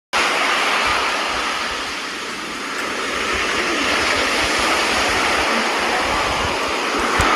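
Sea waves washing ashore: a continuous rushing surf that eases slightly about two seconds in, then swells again.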